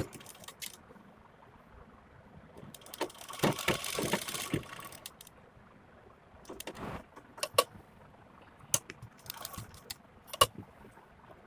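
Domestic sewing machine running a short burst of stitches about three seconds in, lasting a second or two, while lace is sewn onto a blouse panel. Scattered single clicks and rustles of fabric being handled come before and after it.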